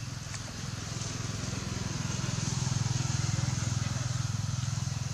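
An engine running steadily, with a low pulsing hum that grows louder in the middle and eases off near the end. A steady high hiss sits above it.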